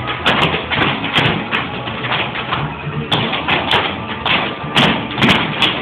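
Tap shoes clicking on a wooden floor, uneven taps at a few a second from several dancers not quite in step, with music playing underneath.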